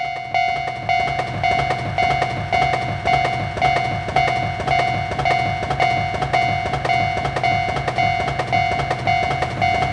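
Japanese railroad-crossing warning bell clanging steadily at a bit under two strikes a second, while an electric commuter train rumbles past through the crossing.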